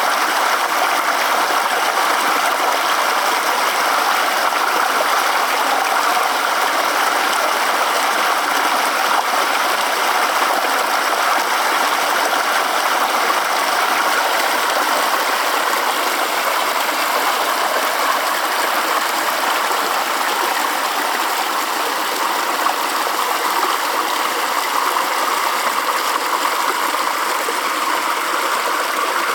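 Small creek waterfall splashing and rushing steadily.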